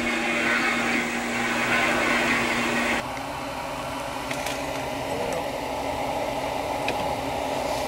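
Steady mechanical hum and whir with a constant low tone, changing abruptly to a different steady hum about three seconds in.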